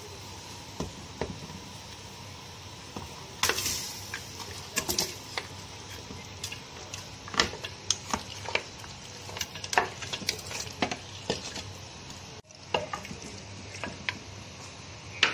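Raw mutton pieces being tipped into a clay pot of boiling water and then stirred with a wooden spoon: irregular knocks and scrapes of meat and spoon against the pot over a steady hiss.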